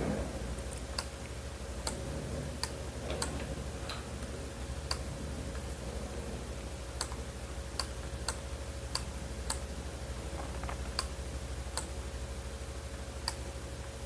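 Computer clicking: about a dozen sharp, single clicks at irregular intervals, roughly one a second, as images are dragged and resized on screen. A steady low hum runs underneath.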